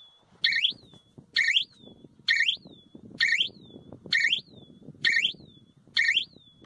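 Solar electric fence energizer (zatka machine) giving a short electronic chirp with each shock pulse, repeating evenly a little faster than once a second, over a faint low rustle.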